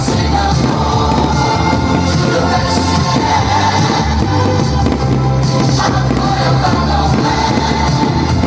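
Loud music with singing and a steady, shifting bass line.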